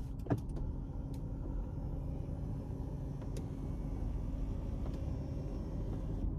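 Steady low rumble of a parked car running, heard inside the cabin, with a faint steady hum and a few faint clicks.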